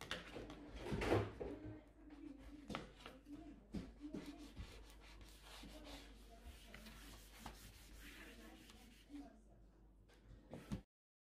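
A squeegee rubbing and scraping over self-adhesive contact film as it is smoothed onto a tabletop, with scattered knocks and taps from the tool and hands on the table. The sound cuts off abruptly near the end.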